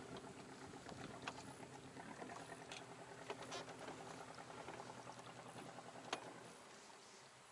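Faint water lapping and small clicks against a rowboat's hull, over a low steady hum that fades out about six and a half seconds in.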